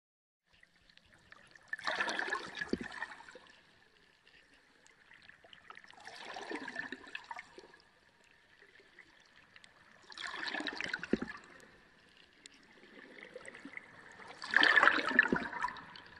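Water gurgling and splashing in four swells, one about every four seconds, the last the loudest, over a faint steady high tone.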